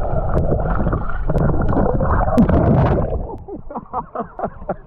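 Muffled underwater churning and gurgling heard through a submerged action camera in a lake, then water sloshing and splashing in short choppy pulses as it breaks the surface about three seconds in.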